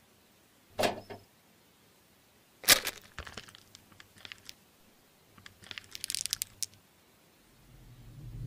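Crinkling and tearing of a small plastic wrapper being opened by hand, in short bursts of crackle, after two sharp knocks. A low rumble starts swelling near the end.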